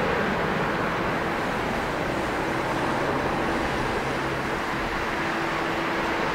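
Boeing 777-200ER's twin Pratt & Whitney PW4000 turbofans at high thrust as the airliner begins its takeoff roll, heard from behind: a steady jet roar with a low hum running through it.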